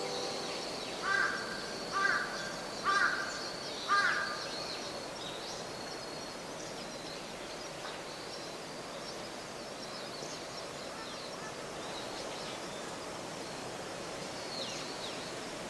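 A crow cawing four times, about a second apart, over forest ambience with small birds chirping high and thin throughout.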